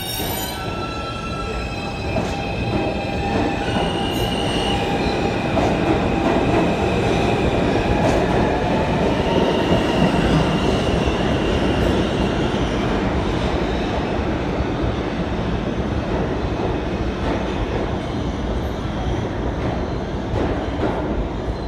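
R160 subway train pulling out of the station and running past, its electric propulsion whining in several high tones that shift in pitch as it speeds up over the rumble of wheels on the rails. The rumble is loudest about ten seconds in as the last car goes by, then eases as the train heads into the tunnel.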